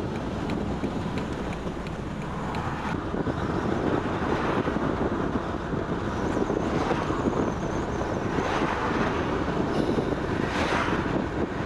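Steady road and wind noise from a Jeep Wrangler driving at road speed. The noise swells several times as oncoming cars pass, the biggest swell coming near the end.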